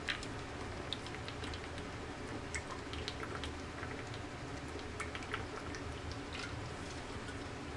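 Faint, scattered light clicks and ticks over a low steady hum: small objects being handled.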